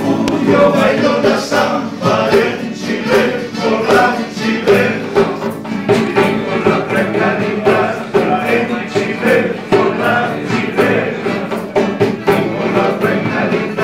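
Several men singing a jota together to two strummed Spanish guitars, with a hand drum tapped along.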